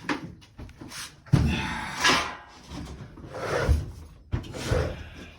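Irregular knocks, bumps and rustling from a phone being handled and moved while recording, with a sharp knock about a second and a half in.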